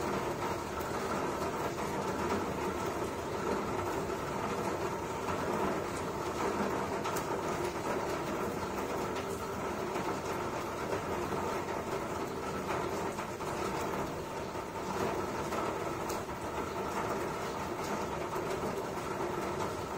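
Steady rumbling background noise with no distinct events.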